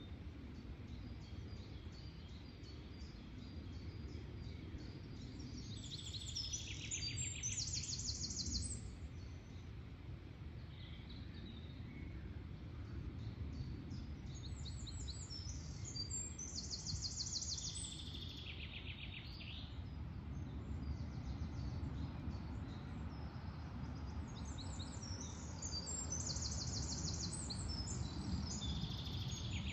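Woodland birdsong: a songbird sings three loud phrases of rapid trilled notes, about ten seconds apart, over fainter high twittering and a steady low rumble.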